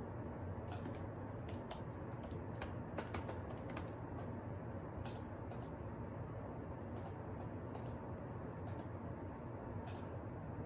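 Light clicks and taps in irregular clusters, like keys or small hard objects being handled, over a steady low hum.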